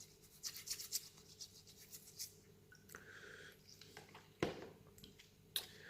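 Small coins being handled and sorted by hand: faint scraping and light clicks, with two sharper clicks of coin on coin or on the table towards the end.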